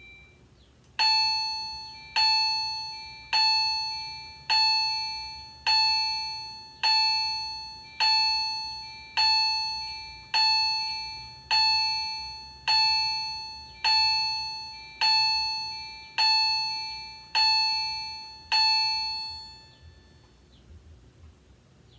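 Fire alarm chime strobe sounding its test chime: a pitched electronic ding repeated sixteen times, a little over a second apart, each ringing out and fading before the next. It starts about a second in and stops near the end, and the unit is working properly.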